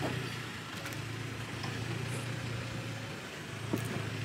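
2022 Toyota Tacoma pickup's engine running steadily at low revs as the truck crawls slowly over rocks, heard from outside. A light knock sounds near the end.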